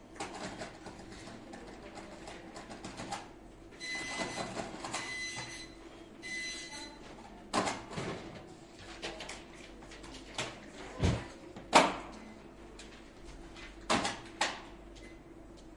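Office room ambience: a steady low hum under scattered clicks, knocks and thumps of objects being handled, with two short stretches of a whirring machine whine in the first half.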